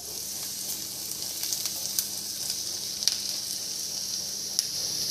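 Chopped onions sizzling steadily in hot oil in a frying pan, with a few sharp clicks of a wooden spatula against the pan as they are stirred.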